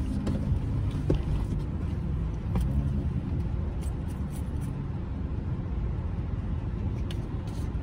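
Steady low rumble inside a parked pickup truck's cab, with a few faint clicks and knocks.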